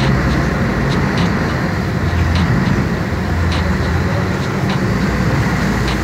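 A ferry's engine running with a steady low hum under the rush and splash of water churning against its steel hull.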